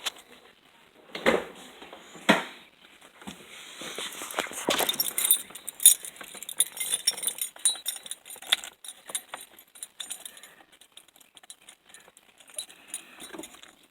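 Keys jangling and clinking on a key ring, with two louder knocks about one and two seconds in. No starter click or cranking is heard, the car's no-click, no-start fault.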